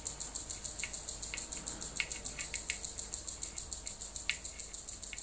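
Faint clicks and rustles of stiff coax cable being handled and wound through a ferrite toroid, over a steady, rapid, high-pitched chirping at about eight pulses a second.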